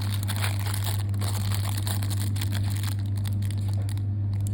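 Crinkling and crackling of advent calendar packaging being opened and handled, a dense run of small irregular crackles, over a steady low hum.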